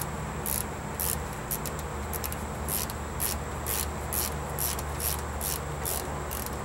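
Insects chirping in a steady rhythm, about two short high pulses a second, over a constant high-pitched buzz and a low steady hum.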